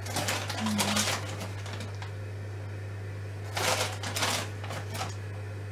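Plastic bag of grated cheese crinkling and rustling as a hand reaches in and handles it, in two main bursts, the second about three and a half seconds in, over a steady low hum.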